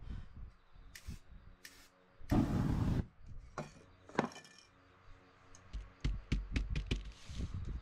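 Two brief hisses, then a louder burst of hissing lasting under a second, followed by a quick run of sharp taps and low knocks as a hand presses and pats on the spray-painted board.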